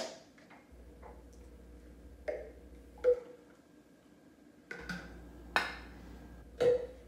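A blender cup and a glass mug being handled on a countertop: several sharp knocks and clinks, a few of them ringing briefly, as the blended coffee is poured into the glass mug and the blender cup is set down near the end.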